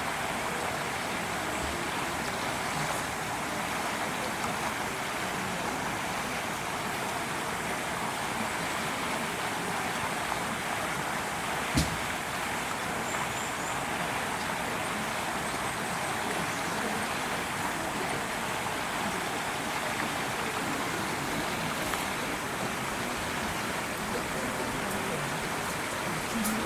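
Steady rushing background noise with one sharp knock about twelve seconds in.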